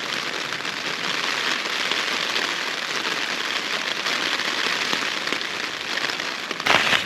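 Heavy, steady rain drumming on the fabric of a Hilleberg Unna tent, heard from inside the tent.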